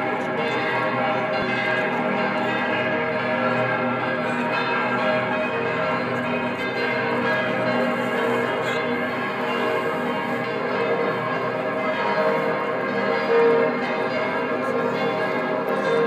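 Bells of several churches ringing at once, their tones overlapping into a continuous, dense clangour of many pitches, with one stroke standing out a little louder near the end.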